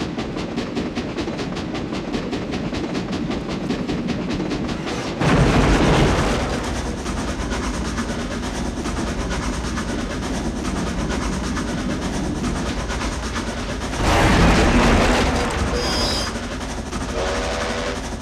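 Movie sound effect of a train running with a steady, rapid rhythmic clatter. A sudden loud surge of noise comes in about five seconds in and again about fourteen seconds in, and short pitched whistle-like blasts sound near the end.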